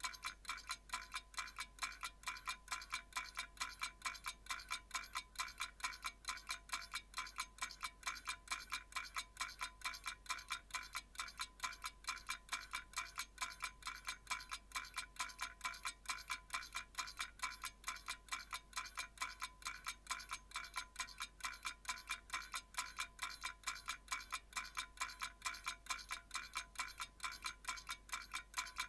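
Clock ticking: fast, even ticks, several a second, each with a bright metallic ring.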